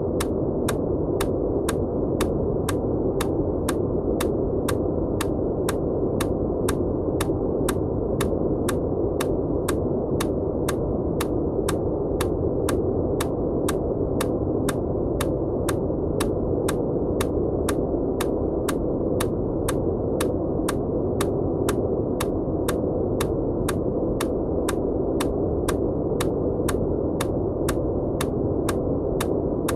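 Steady, muffled synthetic noise with a sharp click repeating at an even pace, about three clicks every two seconds. The clicks are an EMDR bilateral-stimulation pulse laid over the noise.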